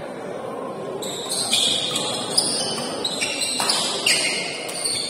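Badminton doubles rally: several sharp smacks of rackets hitting the shuttlecock, with shoes squeaking on the court as the players move, over low background chatter.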